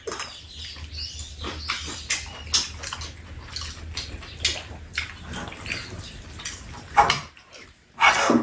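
Two people eating fried rice and soup: slurping and chewing, with spoons and metal chopsticks clicking against bowls and a pan, over a low steady hum. There are two louder, noisier sounds, one about seven seconds in and one at the very end.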